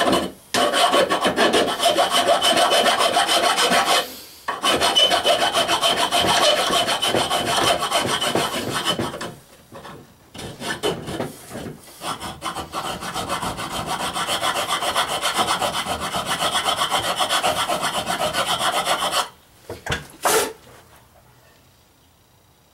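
A hand file rasping back and forth across the cut end of a 1½-inch exhaust pipe to flatten the edge, in long runs of quick strokes with short breaks. The filing stops shortly before the end, with one last short scrape about a second later.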